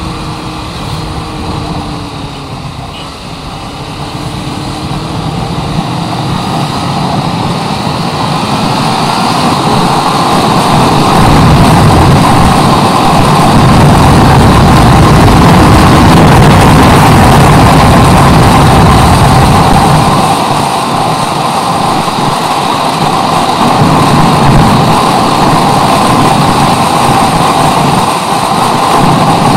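Motorcycle riding heard from a chest-mounted action camera: the engine running under heavy wind rush on the microphone. The noise swells over the first ten seconds or so, stays loud, eases about twenty seconds in, then rises again.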